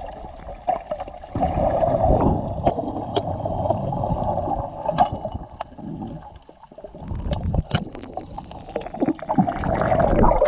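Muffled underwater sound through a camera's waterproof housing: water rushing and churning around the camera as the diver swims, rising and falling in waves, with scattered short clicks. It dips briefly just past the middle.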